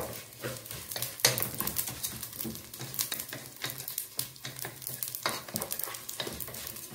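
Vermicelli and onions frying in oil in a pot, sizzling while a wooden spatula stirs them, with repeated scrapes and knocks against the pot; the sharpest knock comes about a second in.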